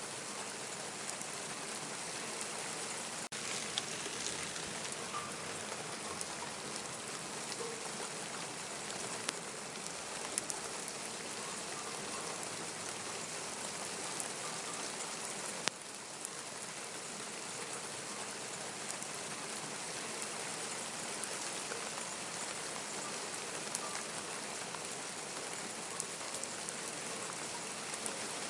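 Steady rain falling, an even hiss with scattered sharp drips and taps of drops hitting surfaces.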